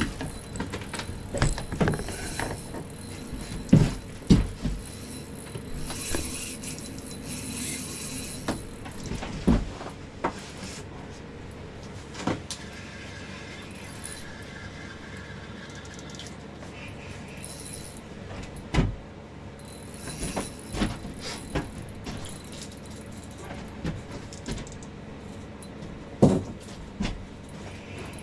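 Scattered knocks, taps and light rattles from fishing gear being handled in an ice-fishing shack, over a steady low hum.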